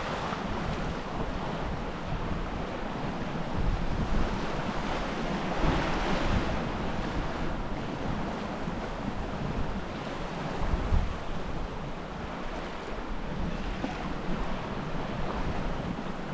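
Wind buffeting the microphone over the wash of water along the hull of a small sailboat under sail, a steady rush that swells now and then.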